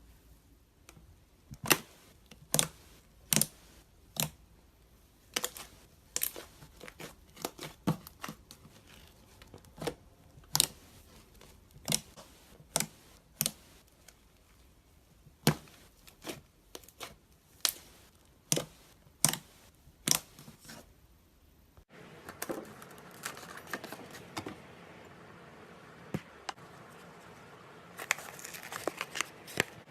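Slime being squeezed and poked, giving sharp pops and clicks at irregular intervals. About two-thirds of the way through the sound changes to a denser, crinkly rustling, with a few more pops near the end.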